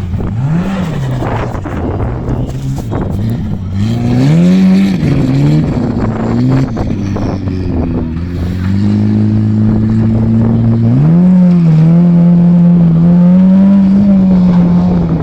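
Formula Offroad hill-climb car's engine revving hard, the pitch rising and falling over and over as the throttle is worked, with sharp knocks mixed in during the first few seconds. About eleven seconds in it climbs again and is held at high revs.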